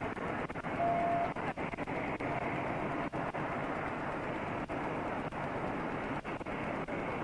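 Steady noise of vehicle engines and traffic, with a short beep about a second in.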